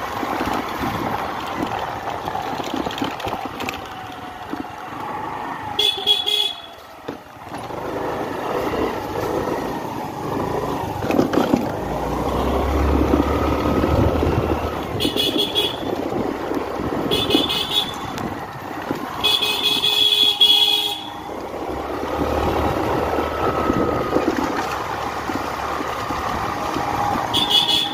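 Motorcycle engine running with wind rush while riding, and a vehicle horn beeping five times in short blasts, the longest about twenty seconds in.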